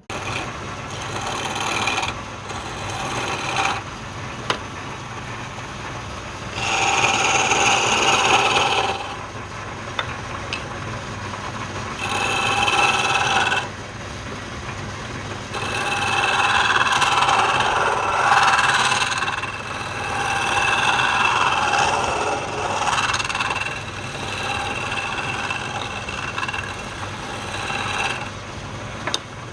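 Wood lathe running with a steady hum while a turning tool cuts the spinning wood in several bouts of a few seconds each, the cutting noise rising and falling with a thin high ring in some bouts.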